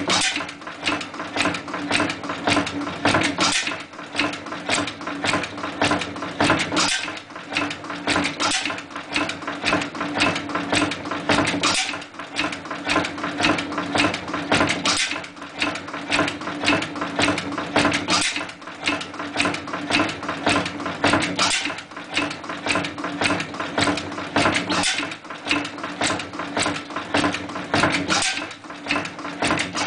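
Hot bulb stationary oil engine (Triumph/Invincible) running, its moving parts clattering in a rapid, even rhythm over a steady low hum. The clatter swells and eases every three to four seconds.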